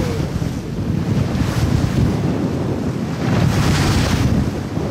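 Wind buffeting the microphone on a moving boat at sea, a steady low rumble, with waves and spray hissing against the hull in a few swells.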